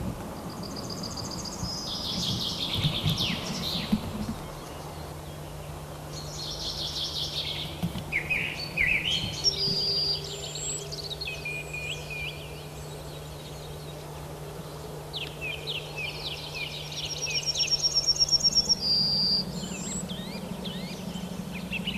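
Small songbirds singing: short, varied phrases of chirps, whistled notes and trills, repeated throughout, with a loud, fast, even trill near the end. A steady low hum runs underneath and steps up slightly in pitch near the end.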